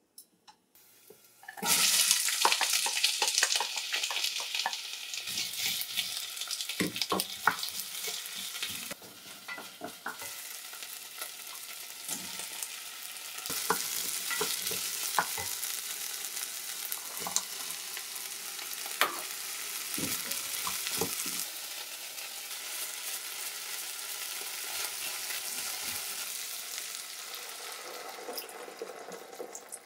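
Diced vegetables sizzling in hot coconut oil in an enamel pot, stirred with a wooden spatula that knocks now and then against the pot. The sizzle starts about two seconds in, and near the end water is poured in and the sizzle dies down.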